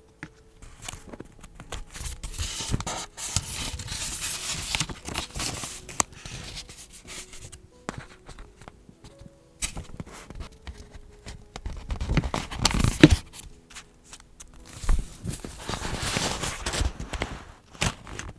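Paper and stationery being handled for vintage journaling: rustling and scraping in three bursts separated by quieter pauses, with small sharp clicks and taps.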